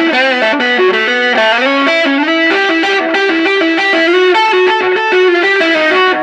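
Electric guitar, a Fender American Special Stratocaster, played through a Mooer Solo distortion pedal on its 'tight' setting into the clean channel of a Bugera V22 tube amp: a distorted single-note lead line with bent and wavering notes. The tone sounds even more compressed than on the classic setting.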